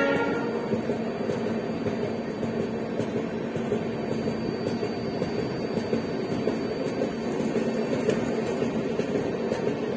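Express train running through a station at speed, heard from on board: a steady rumble and rattle of the coach wheels on the rails, with occasional faint clicks. The tail of the WDP4D diesel locomotive's horn dies away in the first half-second.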